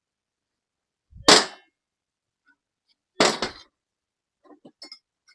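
Two sharp metal-on-metal knocks about two seconds apart, each ringing briefly, from shaping a sheet-steel brace bracket, followed by a few faint small clicks near the end.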